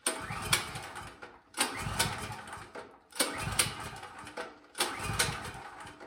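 Champion portable generator's single-cylinder engine being cranked with the recoil pull-starter four times, each pull a sharp start followed by a fading whir, without the engine firing. The engine won't start because of a carburetor fault, a gunked-up main jet.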